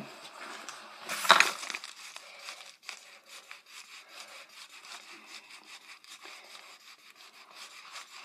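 Rapid back-and-forth scratching on a mail package as a name is scribbled out with a pen, with a louder scrape about a second in.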